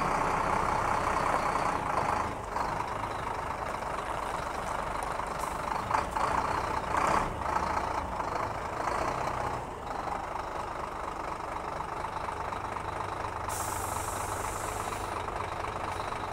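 Heavy diesel truck engine idling steadily.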